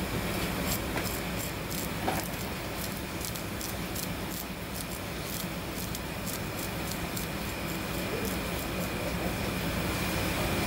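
Kitchen knife scraping scales off a whole fish on a cutting board: a run of short scraping strokes, about three a second, that stop near the end, over a steady background hum.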